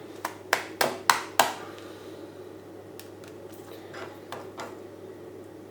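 A smartphone being knocked against a hard surface to free a stuck power button: five sharp knocks about a quarter second apart, then a few softer knocks a couple of seconds later.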